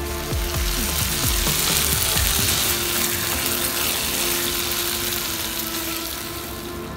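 Prawns and squid in masala sizzling in a frying pan while a wooden spatula stirs and scrapes through them, over background music.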